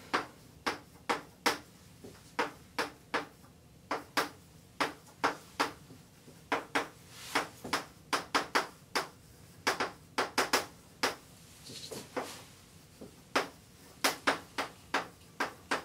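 Chalk writing on a blackboard: an irregular run of short clicks and taps as the chalk strikes and scratches the board, a few per second, with a short lull about three quarters of the way through.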